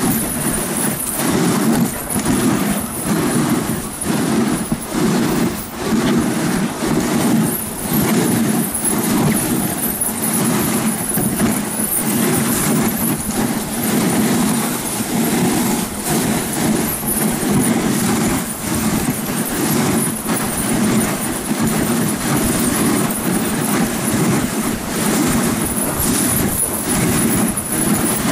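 Steady rushing, rumbling noise of a dog sled on the move over snow: wind buffeting the microphone, together with the runners sliding and scraping over snow.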